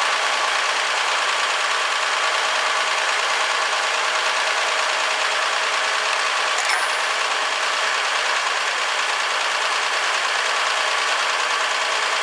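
1964 Ford F100 pickup's engine running steadily on its freshly rebuilt carburetor, with one brief click about halfway through.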